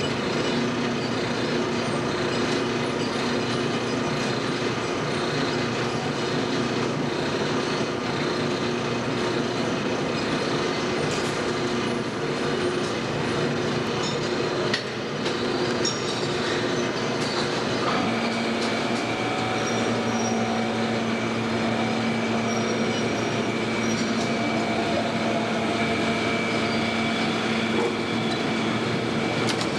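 Automatic PET bottle washing, filling and capping machine running: a steady mechanical hum with light clatter and a few clicks. A new steady tone joins the hum about two-thirds of the way through.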